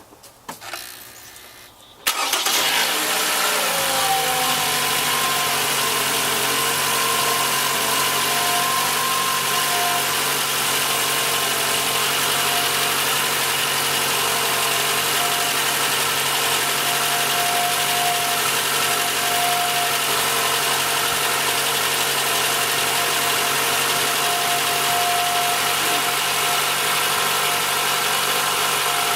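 Toyota inline-four engine cranked by its starter and catching about two seconds in, its revs falling from the start-up flare to a steady idle, running on freshly replaced spark plugs and reseated coil-on-plug coils.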